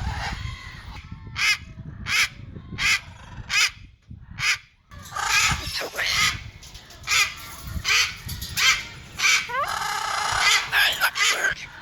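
Parrots calling: a run of short squawks, about one or two a second, some rising in pitch, with a brief pause about four seconds in.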